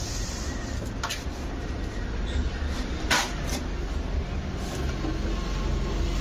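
Stiff wedding-card paper being handled and torn: a few short rustles and rips, the loudest about three seconds in, over a steady low rumble.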